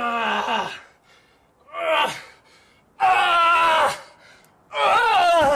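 A boulderer yelling with effort through hard moves on an overhang: four loud cries, each under a second. The first falls in pitch, the second is short, and the last two are the longest and loudest, the final one wavering.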